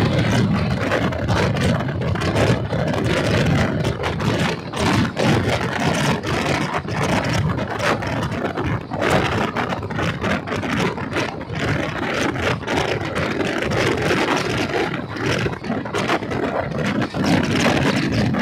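Indian Railways passenger coach running along the track, heard from its open doorway: a steady rumble and rush of noise with irregular clacks of the wheels over rail joints.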